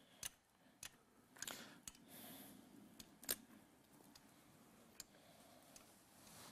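Faint, scattered clicks from two hand caulking guns as their triggers are squeezed, pressing out beads of adhesive sealant onto roofing membrane. The clicks come irregularly, about seven in all, over near silence.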